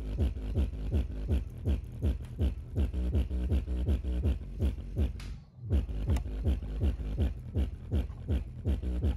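Bare LG subwoofer driver, open on test leads, playing a bass-heavy electronic track: a fast run of deep bass notes, each dropping in pitch, with a short break about five and a half seconds in.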